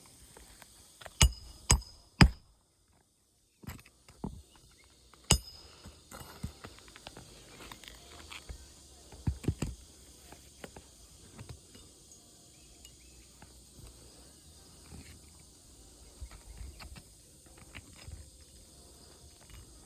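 Hammer striking roofing nails into asphalt shingles: three sharp strikes about a second in, one more near five seconds, and two close together near nine and a half seconds. Behind them is a steady high drone of insects.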